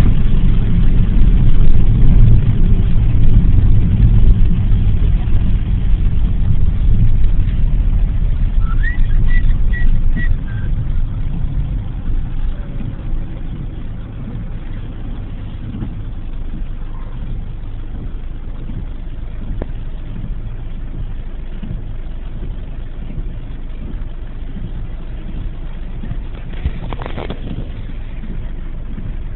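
Car engine and road rumble heard from inside the cabin, loud at first and then dropping to a quieter steady rumble after about twelve seconds as the car slows in a queue of traffic.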